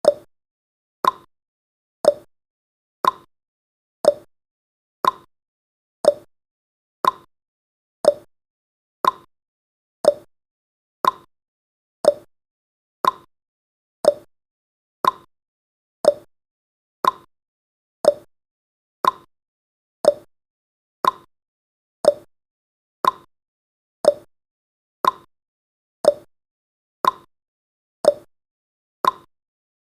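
Ticking clock sound effect of a countdown timer: one short tick every second, steady throughout, alternating between a slightly higher and a slightly lower tick like a tick-tock.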